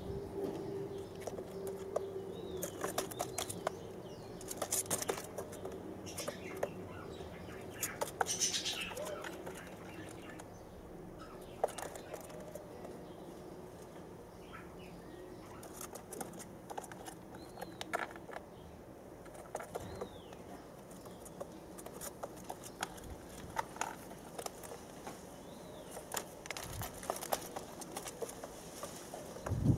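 White doves' feathers rustling and scratching as the adult preens its chick in the nest, with many scattered small clicks and a few faint, short, high bird chirps.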